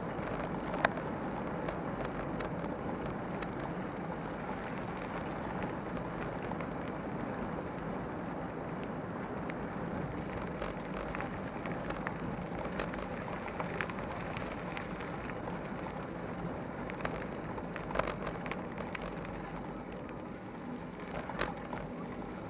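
Bicycle rolling along a gravel path, picked up by a camera mounted on the bike: a steady rumble of tyres on gravel with scattered sharp clicks and knocks from bumps and stones, the loudest about a second in and again near the end.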